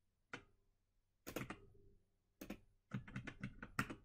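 Computer keyboard keystrokes entering a string of characters: a few separate clicks, then a quick run of about eight near the end.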